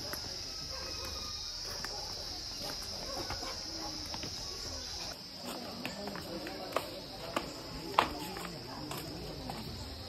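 Steady high-pitched chirring drone of insects, with people's voices murmuring underneath and a few sharp knocks, the loudest about eight seconds in.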